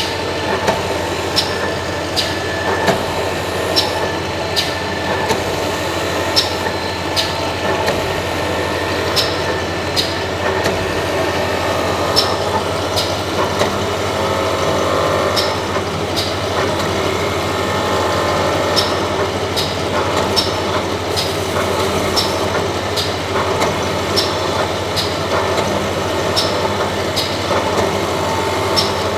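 Machinery running steadily with a constant low hum, while a sharp click repeats at an even rhythm, usually two close together about every second and a half.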